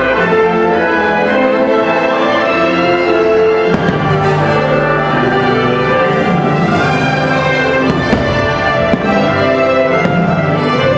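Orchestral music with strings and brass, the soundtrack of a fireworks show, with a few faint firework pops over it.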